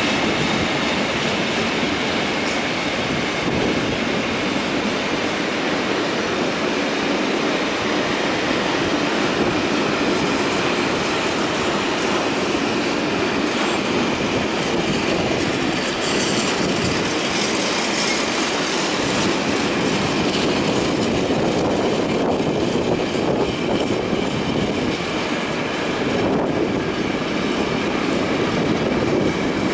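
A train rolling past on the rails: a steady running noise with faint, high wheel-squeal tones, and quick clicks over the track joints in the second half.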